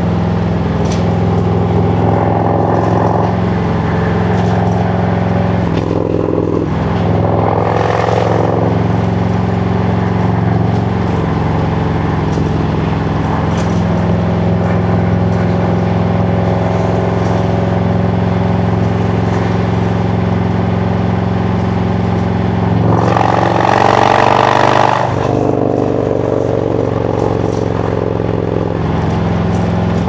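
A Harley-Davidson Road Glide Special's Milwaukee-Eight V-twin engine and exhaust running at street cruising speed, heard from the rider's seat. The engine note dips and rises about six to eight seconds in. A louder rushing noise comes for about two seconds some three-quarters of the way through.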